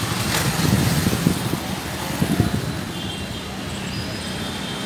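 Wind buffeting the phone's microphone in low rumbling gusts over a steady background of town traffic.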